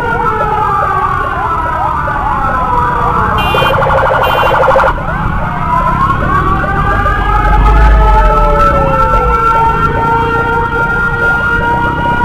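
Several emergency sirens sounding together: fast repeating yelp sweeps overlapping slower wails that rise and fall. A short pulsing tone breaks in about three and a half seconds in.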